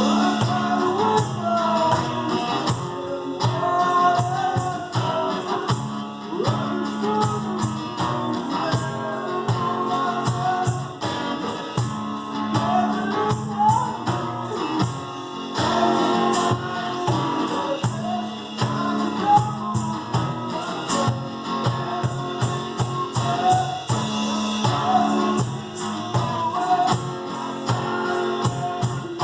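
Live acoustic two-piece band playing: guitar and percussion keeping a steady beat, with a singing voice over it.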